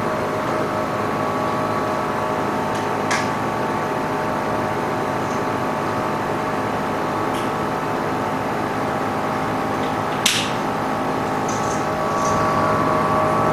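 Large LCD separator machine running with a steady hum while its plate heats the screen, with two sharp clicks, the louder about ten seconds in.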